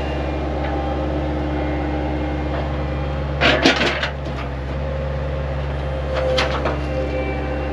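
An engine running steadily, with a clatter of knocks about three and a half seconds in and a lighter knock about six seconds in.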